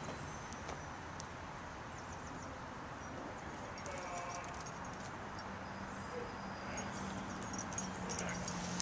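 Outdoor ambience, with a faint steady low hum coming in about halfway through. Near the end a dog's collar tags jingle lightly as it walks up.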